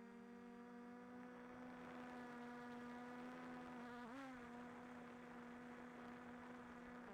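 Small multirotor drone buzzing faintly and steadily, its pitch dipping and wobbling briefly about four seconds in as the motors change speed.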